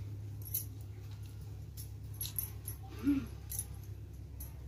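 Light scattered clicks and clinks as a hand rubs oil into a child's hair, bangles on the wrist knocking together, over a steady low hum. A short vocal sound comes about three seconds in.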